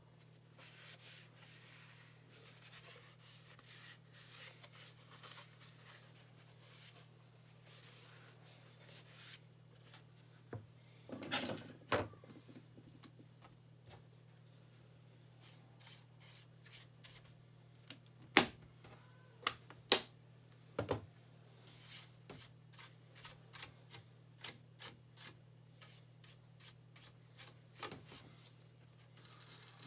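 Hands working a plastic split keyboard and its palm rest: soft rubbing and scraping, broken by sharp plastic clicks and snaps, loudest in a few single cracks about midway.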